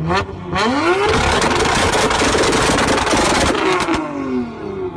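Nissan GT-R's twin-turbo V6 revved hard. A quick blip comes first, then a rising rev held high for about three seconds, with dense crackling pops from the exhaust. The revs drop away near the end.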